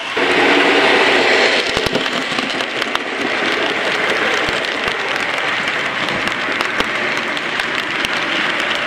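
OO gauge model trains running on the layout: a steady whirring rumble of wheels on track, with a rapid scatter of clicks over the rail joints, loudest in the first second or so.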